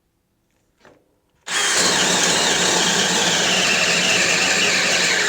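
DeWalt Atomic 20V cordless drill starting up about a second and a half in and boring into wood in second speed, on a battery down to one bar. Its motor whine sinks slowly in pitch as it labours under the load.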